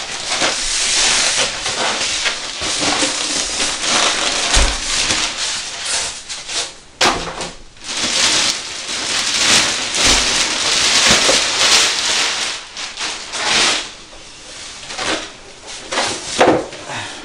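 Clear plastic bag around a desktop computer tower crinkling and rustling as it is handled and pulled off, with a couple of dull thumps.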